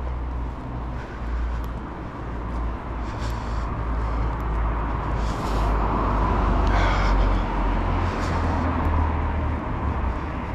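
Urban street ambience: road traffic running steadily with a low rumble, swelling as a vehicle passes about six to eight seconds in.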